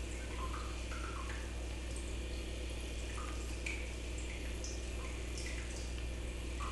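Steady low hum of room noise, with faint scattered small ticks and rustles.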